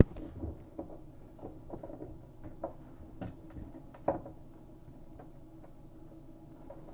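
Small faucet parts being handled and fitted together: a scattering of light clicks and taps, with one sharper knock about four seconds in.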